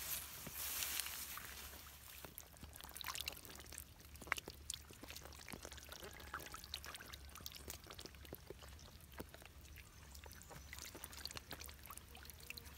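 Catfish wriggling and splashing faintly in a shallow muddy pool: water trickling, with many small scattered wet ticks and slaps.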